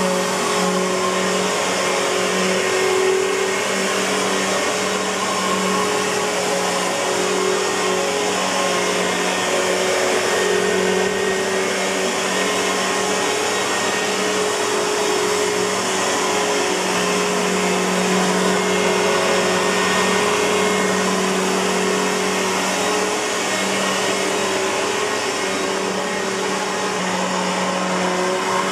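Simplicity Symmetry (SYMST.2) upright vacuum cleaner running steadily, its Suzhou Kaihang motor giving a steady hum under the rush of air.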